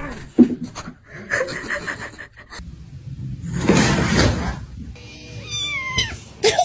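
Background music with a cat meowing over it.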